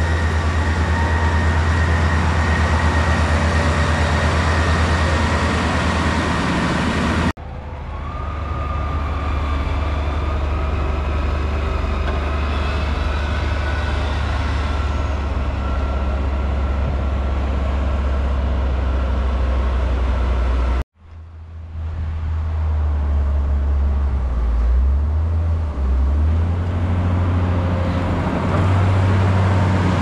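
Heavy diesel engines of farm machines working a maize silage heap: a steady low drone, broken twice by an abrupt cut to another machine, a John Deere tractor and then a Volvo wheel loader. In the last part the loader's engine revs rise and fall.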